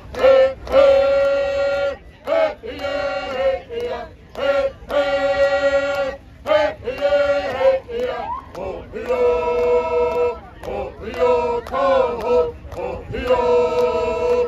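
A group of voices, mostly men's, singing a song together in phrases of long held notes with short breaks between them.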